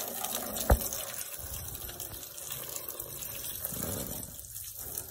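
Water running and splashing over a motorcycle's wet bodywork, a steady hiss, with one short sharp knock about a second in.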